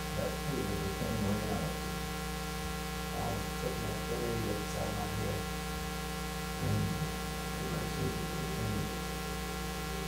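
Steady electrical mains hum, a buzz with many evenly spaced overtones, with a faint, indistinct murmur coming and going underneath.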